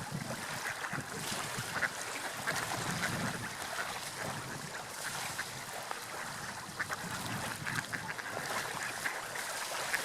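Water lapping and splashing, a steady wash of noise with many small crackles and splashes.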